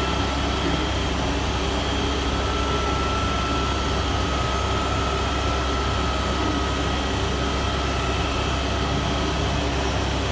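CNC milling machine running a program in automatic mode: a steady mechanical noise with a low hum and a thin, steady high whine.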